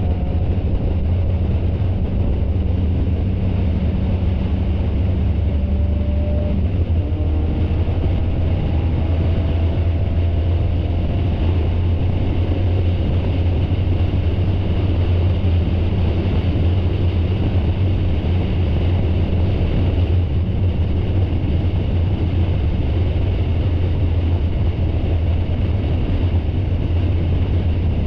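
Spec Miata race car's four-cylinder engine running at steady revs, heard from an onboard camera as a low, even drone with little change in pitch, mixed with wind and road noise.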